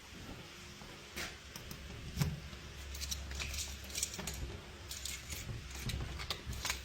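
Scattered light clicks and rustles of handling and movement, with a low steady hum for a few seconds in the middle.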